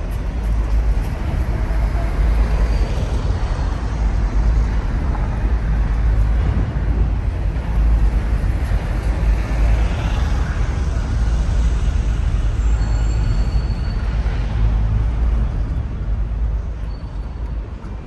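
Steady city traffic noise with a heavy low rumble, swelling now and then as vehicles pass, while a Docklands Light Railway train crosses the elevated bridge near the start.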